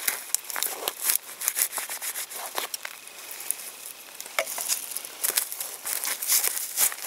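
Dry bark being scraped and stripped off a thin stick: a continuous run of short scratchy rasps and crackles.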